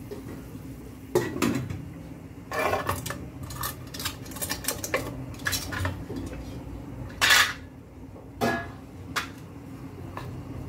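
Stainless-steel couscoussier steamer basket clanking and scraping against a ceramic plate as steamed vermicelli is turned out of it: a string of separate metallic knocks and short scrapes, the loudest about seven seconds in.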